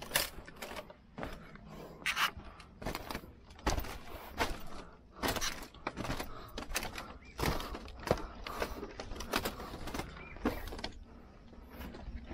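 Footsteps and shifting weight on a split-bamboo slat floor: irregular knocks, cracks and creaks of the bamboo, dying down about eleven seconds in.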